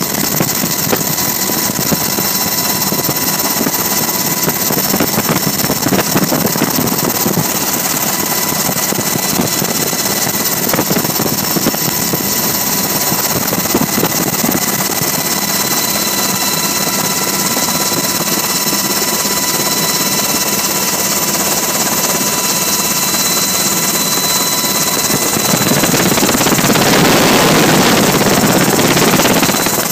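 Black Hawk helicopter in flight, heard from inside the cabin: a loud, steady rush of rotor and turbine noise with steady high whining tones over it. Near the end the rush swells louder for about four seconds, then settles back.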